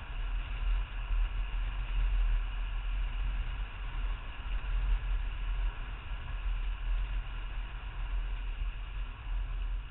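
A BMW E34 M5 driving, heard from a camera mounted on the outside of its rear door: a steady low rumble of wind and road noise with a fainter hiss above it.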